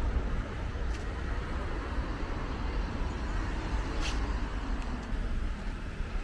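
City street traffic at a busy intersection: cars and taxis running and passing, a steady low rumble, with a short sharp click about four seconds in.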